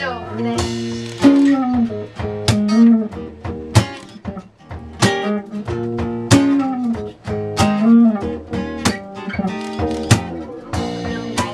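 Live indie-folk band playing an instrumental passage: an acoustic guitar strummed steadily, with other plucked strings and melody notes that bend in pitch.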